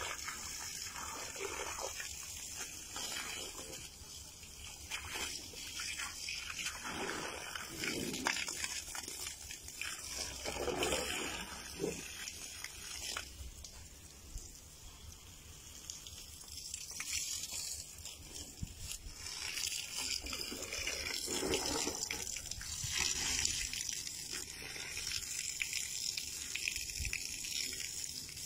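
Water spraying from a garden hose with a thumb pressed over its end, hissing and splashing onto a concrete floor, the spray rising and falling in strength.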